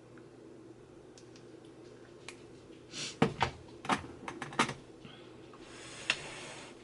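A quick run of sharp clicks and knocks, then a short soft hiss near the end with one more click in it.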